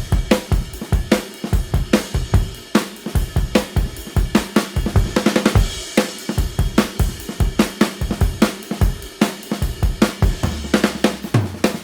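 Background music led by a busy drum kit: a fast, steady beat of snare, hi-hat and cymbal hits, with a sustained bass coming in near the end.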